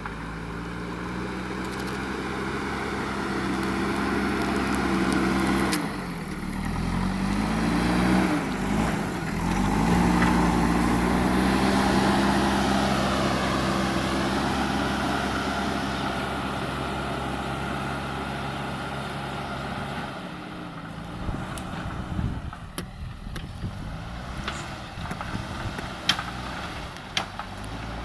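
Diesel engine of a JCB earthmoving machine running and working under load, its pitch dipping and rising several times about a quarter of the way in. Later the engine note drops away and a few sharp knocks are heard.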